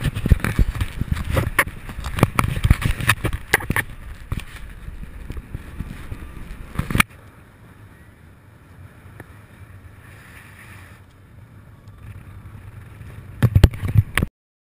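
Wind buffeting an action camera's microphone in paragliding flight: a loud, gusty rumble with sharp knocks, which drops abruptly about halfway to a quieter steady rush of air. A short loud gust comes near the end before the sound cuts off.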